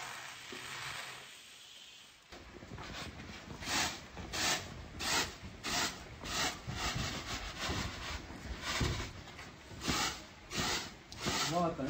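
Freshly roasted grain poured from a steel wok onto a large bamboo tray, a sandy hiss. After a short pause the grain is shaken and swished around a bamboo winnowing tray in rhythmic strokes, about two a second.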